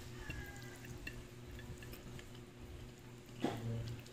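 Person eating a mouthful of food by hand: soft wet chewing and mouth sounds with small clicks, and a short louder sound about three and a half seconds in. A low steady hum runs underneath.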